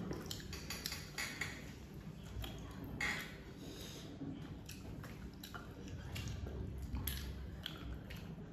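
People eating by hand: chewing and mouth sounds, with scattered short clicks of fingers and food against plates.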